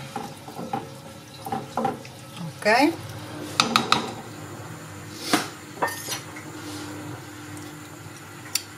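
Wooden spoon stirring a thick minced-meat tomato sauce in a non-stick frying pan, with irregular scrapes and knocks of the spoon against the pan.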